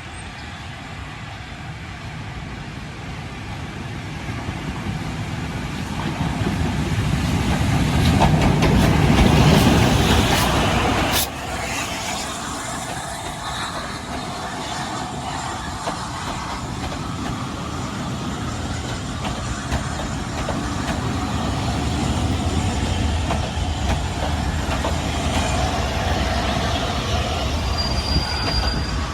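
A train running along the rails. Its rumble builds to a peak about ten seconds in, drops off suddenly, then continues steadily, with a faint high wheel squeal near the end.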